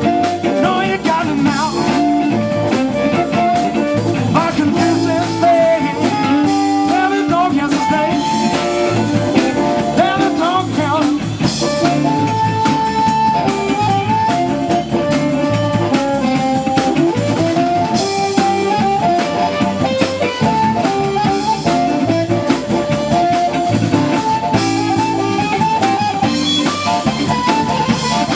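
Live blues band playing an instrumental passage: amplified harmonica leading with held, wavering notes over electric guitar, electric bass and a drum kit.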